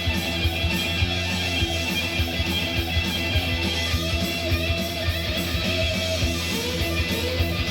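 Rock music: electric guitar playing over drums, with frequent short hits throughout.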